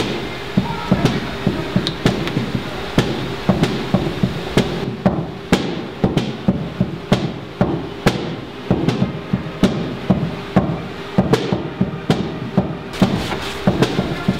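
Drum kit being played: a steady beat of drum and cymbal hits.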